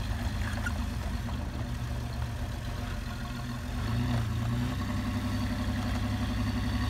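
Engine idling sound effect: a steady, even engine drone that rises in pitch about four seconds in and then holds at the higher pitch.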